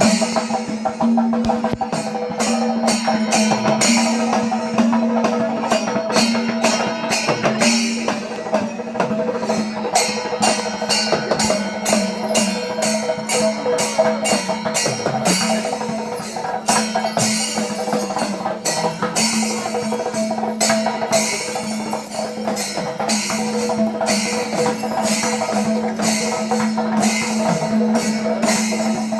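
Shingari melam: Kerala chenda drums beaten in a fast, dense rhythm with clashing hand cymbals, over a steady held tone.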